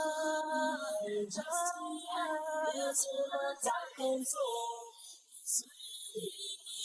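A woman singing unaccompanied, held melodic notes in short phrases, with a brief lull about five seconds in.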